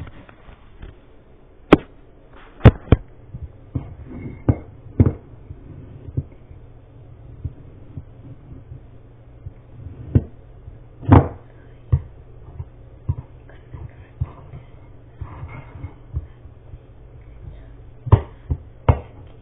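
A spoon knocking and clicking against a bowl while stirring, in irregular single strikes with pauses between them.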